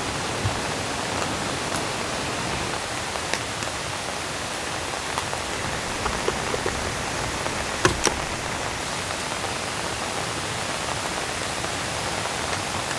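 Steady rain falling on the tent, heard from inside, with a few light clicks; the sharpest pair comes about eight seconds in.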